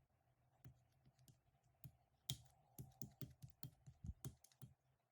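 Faint, irregular series of light clicks and taps, about fifteen in quick succession, stopping shortly before the end.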